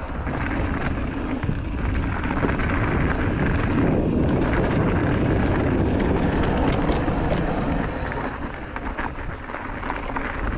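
Mountain bike riding down a rough trail: continuous rumbling wind and tyre noise on the camera microphone, with scattered small knocks and rattles. It eases briefly about eight seconds in.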